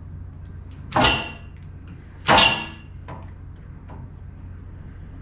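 Two short, loud scraping strokes with a metallic ring, about a second and a half apart, from hand work on the copper service wire and metal meter socket, over a steady low hum.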